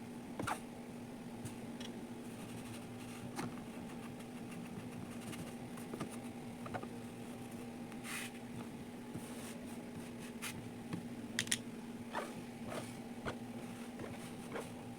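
Kinetic sand being pressed and cut, giving soft scattered crunches and clicks at irregular intervals, with a steady low hum underneath.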